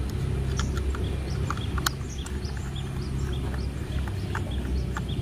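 Small screwdriver working the screw of a toy locomotive's plastic battery cover: scattered light clicks and ticks of metal on plastic. Short high chirps repeat in the background over a steady low hum.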